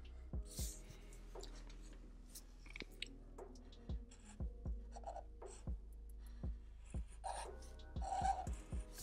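Black marker drawing short strokes on paper: a dozen or so separate scratchy strokes, each starting with a light tap of the tip, over a steady low hum.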